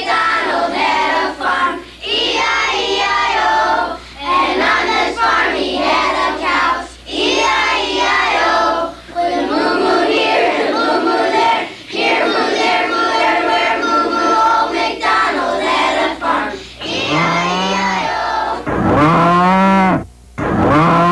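Group of children singing a song, with a series of drawn-out moo sounds in the last few seconds.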